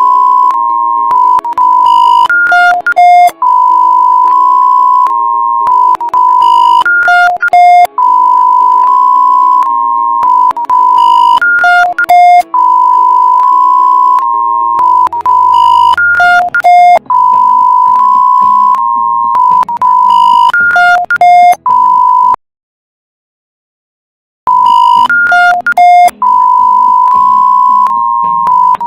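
Electronic emergency alert tone: a long steady mid-pitched tone that steps slightly up and back down, then a quick run of alternating high and low beeps. The pattern repeats about every four and a half seconds, with a two-second break near the end.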